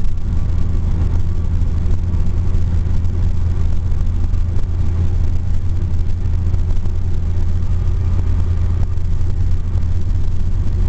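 Steady low drone of road and engine noise inside a moving car's cabin at freeway speed.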